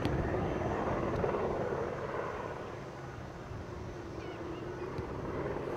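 Steady outdoor rumble and hiss, with faint soft thuds of a soccer ball being kicked: one right at the start and another about five seconds in.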